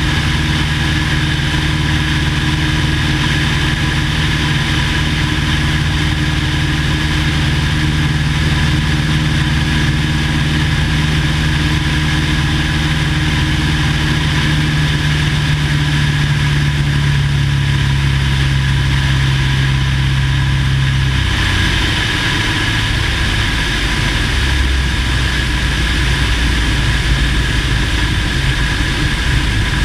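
Cessna 170A's piston engine and propeller running steadily. About two-thirds of the way through, the engine's note changes and becomes rougher and less even, as with a change of power setting.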